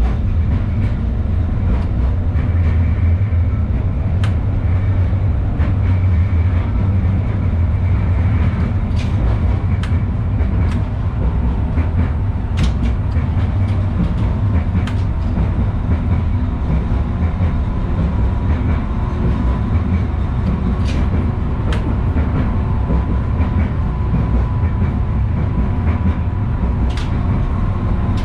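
LVS-86K tram running along the track, heard from inside the passenger cabin: a steady low rumble of wheels on rails, with scattered sharp clicks and a faint steady whine through the second half.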